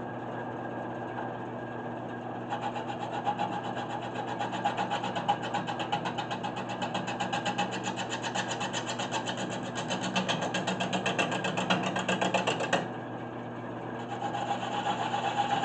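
1981 Delta 12-inch wood lathe running steadily with its motor humming while a turning tool cuts the spinning spalted maple slab. The cut makes a fast, even ticking as the tool strikes the uneven blank on each turn. The ticking starts a couple of seconds in, stops about a second before the end and then starts again.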